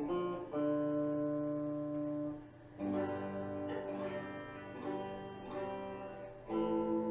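Harley Benton TE-90QM semi-hollow T-style electric guitar with P-90 pickups, played with a clean tone. One chord rings for about two seconds, then a run of chords is strummed and left to ring.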